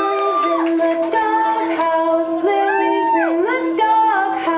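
Recorded song playing through a club's sound system: a voice singing a slow melody with long held notes over a steady sustained note.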